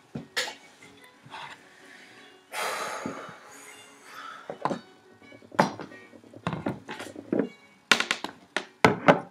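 Handling noise on a desk: a string of sharp knocks and clinks as objects, a glass jar candle among them, are picked up and set down. A spell of rustling comes about two and a half seconds in, and the knocks come thickest near the end.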